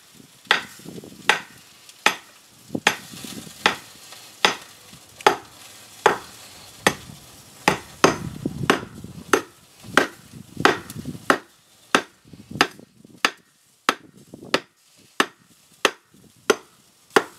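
Rusty antique adze swung repeatedly into the top of a weathered wooden beam, hewing it level: a steady run of sharp wooden chops, a little faster than one a second, with chips scraping loose between strikes.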